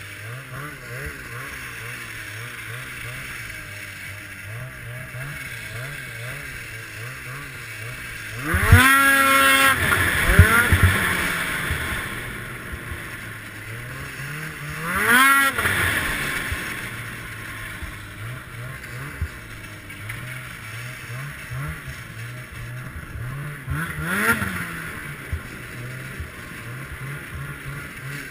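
A 2014 Ski-Doo Summit X snowmobile's two-stroke engine runs under way, heard from on board. It revs up sharply and falls back three times: the longest and loudest about 9 s in, another around 15 s, and a short one near 24 s.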